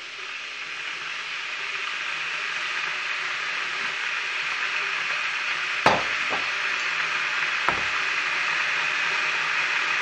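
Tesco 3 kW electric kettle heating a single mug of water: a steady hiss that grows louder as the water heats toward the boil. Two sharp knocks about six and eight seconds in.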